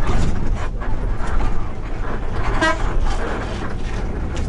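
A long-distance bus running on the road, its engine and tyres making a steady low rumble. A single short vehicle horn toot sounds a little past halfway.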